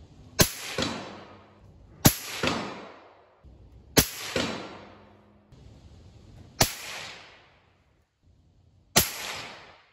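Five rifle shots about two seconds apart, each a sharp crack followed by an echo that fades over about a second.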